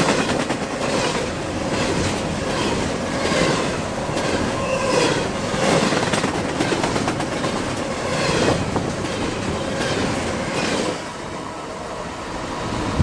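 CSX intermodal freight train passing at speed over freshly replaced ties and bedding: steady rumble of the cars, with wheels clacking over the rails again and again. The sound eases a little near the end.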